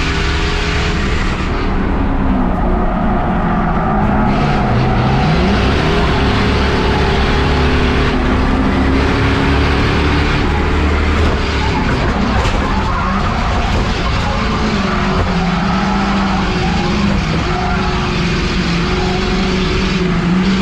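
Race car engines running hard in a pack, with tyre noise. The engine note dips about four seconds in and climbs back up as the throttle comes off and goes on again.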